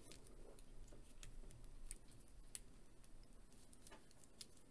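Faint, irregular small clicks and taps of a plastic Grunt Conscript action figure being handled and turned in the hands.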